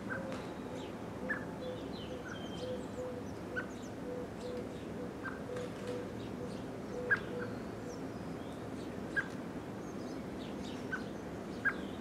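Garden birds chirping, with a low note repeated in short even dashes for the first half, and a sharp tick every second or so from the great spotted woodpecker at the suet pole.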